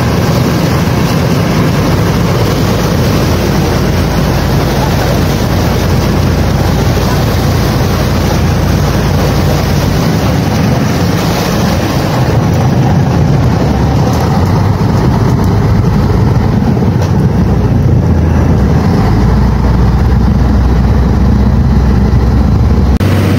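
Passenger motor launch under way, its engine running steadily with wind buffeting the microphone; it grows a little louder in the second half.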